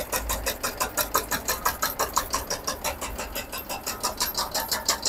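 Motor-driven 6 DCM tobacco (jarda) leaf cutting machine running, its blade chopping in an even rhythm of about six sharp strokes a second over a low motor hum. Shredded tobacco is being fed back through it on a second pass to be cut into granules.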